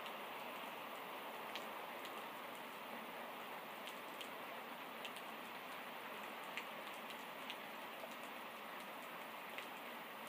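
Steady rain from a thunderstorm: a constant hiss with single drops ticking sharply now and then.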